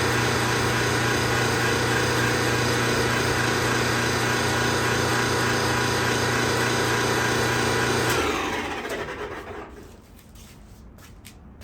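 GE clothes dryer running with a loud, steady noise over its motor hum, then shut off about eight seconds in and winding down with falling pitch over a second or two. The owner suspects a bad bearing in the drive motor, which shows itself once the motor carries the load of the drum.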